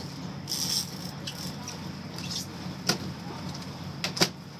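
Sportfishing boat's engine running steadily with a low hum, under scattered sharp clicks and knocks of rod and reel gear in the cockpit; the loudest knock comes about four seconds in.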